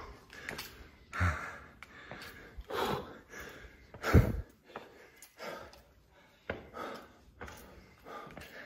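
A person breathing hard and out of breath from climbing a long flight of stairs, heavy puffs roughly once a second, with one louder puff about four seconds in.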